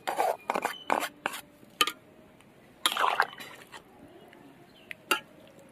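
Spatula and bowl clinking and scraping against a metal kadai as mustard paste is scraped into a simmering vegetable curry: a run of sharp clicks in the first two seconds, a longer scrape about three seconds in, and one more click near the end.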